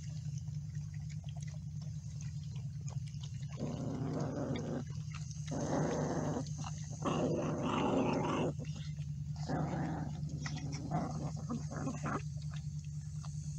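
Pit bull puppies eating dry kibble from a bowl and growling at each other over the food. From about four seconds in there are five or so rough growls of about a second each, with small clicks of kibble and bowl and a steady low hum underneath.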